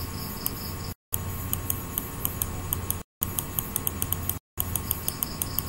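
Light, quick ticks of a computer mouse scroll wheel, a few a second, over a steady microphone hiss and mains hum; the sound cuts out completely for a moment three times.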